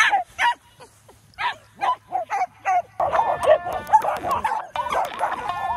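Small dogs yapping excitedly as they chase a lure, a rapid run of short, high barks. About halfway through, music comes in under the barking.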